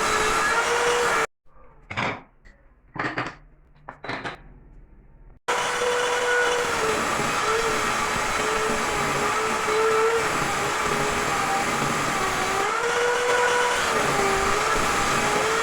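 Electric power tool motor running steadily, its pitch dipping and recovering as it works. A second or so in it cuts off abruptly, and three sharp knocks sound about a second apart before the motor noise resumes.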